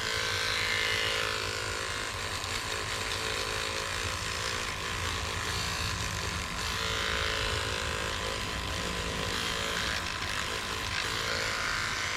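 Electric toothbrush converted into a small sander with a foam sanding pad, buzzing steadily as it sands the seam line on a polyurethane lure.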